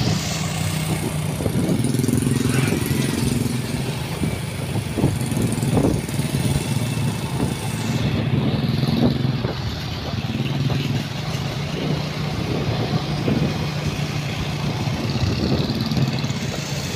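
Motorcycle engine running steadily while riding on the road, with a rush of wind and road noise that eases about halfway through.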